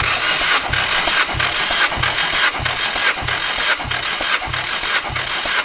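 Nissan SR20 four-cylinder engine being cranked on its starter motor for a wet compression test on cylinder 4. The starter whirs steadily, with a low beat repeating somewhat less than twice a second as the engine turns over against compression.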